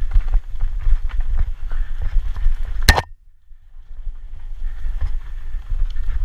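Downhill mountain bike running fast over a rough dirt trail: low wind rumble on the camera mic with constant rattling and clicking of the bike over bumps. About three seconds in comes a sharp, loud knock, after which the sound drops away for about a second before the rattle returns.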